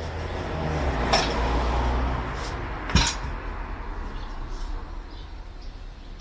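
Metal hand tools clinking and knocking against metal engine parts, with two sharp metallic knocks about a second in and about three seconds in, the second the loudest.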